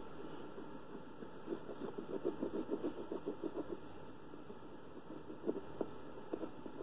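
Orange wax crayon rubbing back and forth on an air-dry clay tile: a run of short strokes, about four or five a second, in the middle, then a few scattered strokes near the end.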